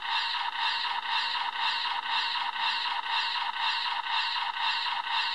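Electronic sound effect played from the DX Soul of Chogokin Mazinger Z figure's built-in speaker: a harsh buzzing tone that pulses steadily about three times a second.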